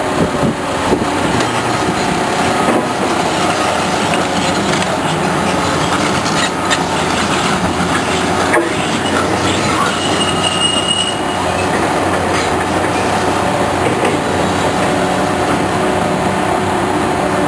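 Heavy road-construction machinery running steadily, a loud mechanical din with metallic squealing tones and scattered clanks. A brief higher squeal comes about ten seconds in.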